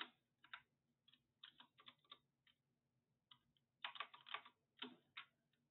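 Quiet computer keyboard typing: several short runs of keystrokes with brief pauses between them.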